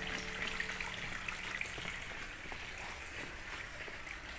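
Faint, steady trickle of water with a few light drips, while a held music chord fades out over the first two seconds.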